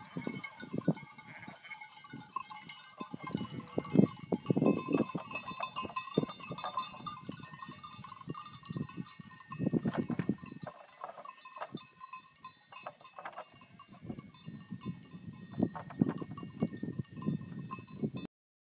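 A grazing flock of sheep bleating again and again, with the animals' neck bells ringing and clanking throughout. The sound cuts off suddenly near the end.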